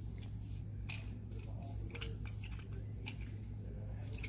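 Faint clicks and scrapes of metal as the two halves of an overflow preventer body are screwed together by hand, over a steady low hum.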